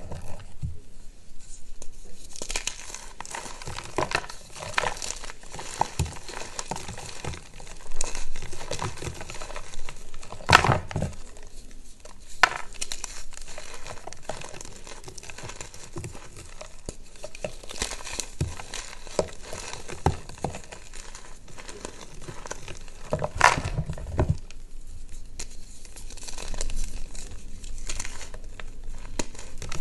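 Reformed gym chalk bars being crushed and crumbled by hand: a continuous dry, crunchy crumbling and crackling of pressed chalk and powder, with two louder sharp cracks of bars snapping, about a third of the way in and again near four-fifths through.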